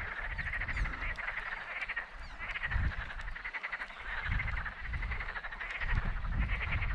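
Frogs croaking in chorus: rapid pulsed calls in several overlapping bouts, over a low rumble.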